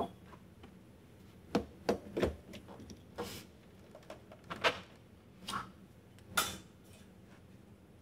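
Metal espresso gear being handled: a series of separate knocks, clicks and short scrapes as the tamped portafilter and tamper are set down and the portafilter is twisted into the group head of a Breville Barista Express.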